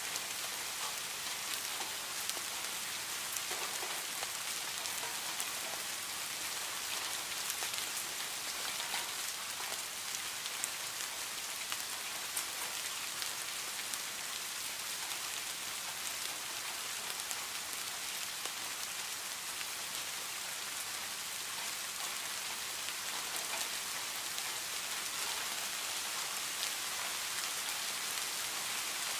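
Steady rain falling on garden foliage: an even hiss with many separate drops ticking through it.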